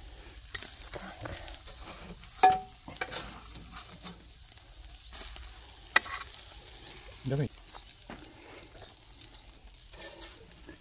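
Burger patties and sausages sizzling over a charcoal grill, with scattered metal clicks of tongs against the grate. There are two loud sharp clinks, the first ringing briefly, about two and a half and six seconds in.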